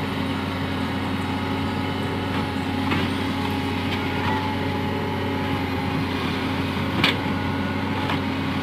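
Hydraulic excavator's diesel engine running steadily. There is one sharp click about seven seconds in.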